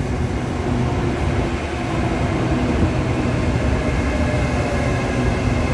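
SRT Red Line electric commuter train running slowly along the platform: a steady low rumble with a faint, steady hum over it.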